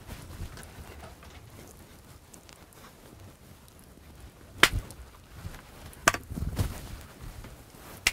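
Low room noise broken by two sharp cracks about a second and a half apart, past the middle, and a fainter click near the end.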